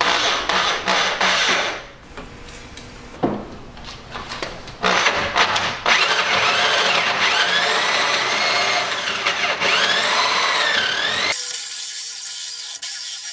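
Corded electric drill driving a hole-cutting bit through steel plate: it runs in short stop-start bursts, then cuts steadily from about five seconds in, with a high squeal of bit on steel that wavers up and down in pitch. Near the end the sound thins to a high hiss.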